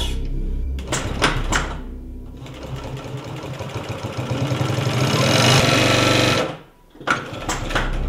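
Habraken heavy-duty industrial sewing machine stitching thick leather, a fast even run of needle strokes that grows louder and stops abruptly about six and a half seconds in, over ambient music.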